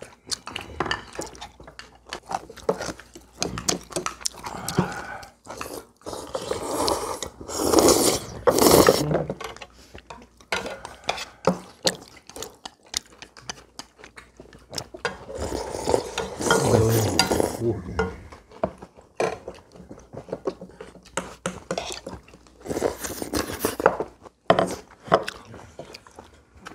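Tableware clatter during a family meal: a metal ladle and spoons clinking against a stainless steel pot and ceramic bowls as noodle soup is served, chopsticks clicking, and eating sounds, with brief low voices.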